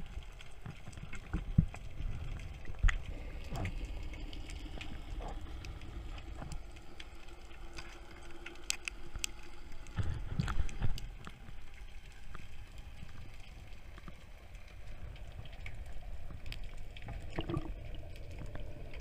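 Underwater sound picked up by a camera in its waterproof housing: a low, muffled rumble of water with scattered sharp clicks and knocks. Two strong knocks come in the first three seconds, and there is a louder stretch of knocks about ten seconds in.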